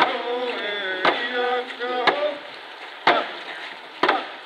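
A group singing a song to a steady drum beat, one loud stroke about every second, as is done with hand drums at a canoe launch.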